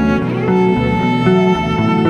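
Instrumental background music: short notes changing pitch every few tenths of a second over a regular bass pulse.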